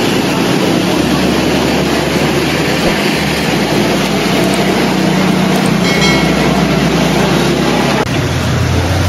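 Steady street traffic noise from motorbikes and other vehicles running, with a short high tone about six seconds in.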